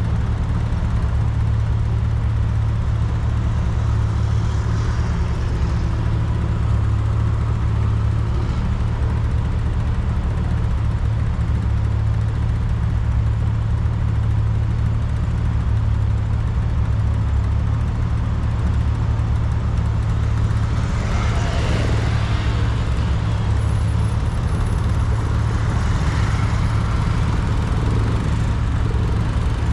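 1994 VW Gol's 1.6 L CHT four-cylinder engine running steadily at highway cruise, heard through an external car-mounted camera as a deep, even drone with wind and tyre noise. Two brief louder rushes of hiss come about two-thirds of the way in and again near the end.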